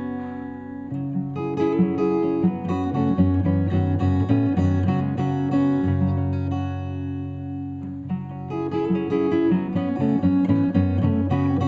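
Live instrumental music: a slow, meditative piece of plucked notes ringing over held bass notes, softer for a few seconds in the middle.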